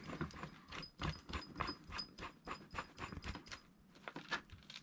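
Faint run of small clicks and scrapes as a CO2 gas canister is screwed by hand into an inflatable life jacket's inflator head, the threads turning metal on metal.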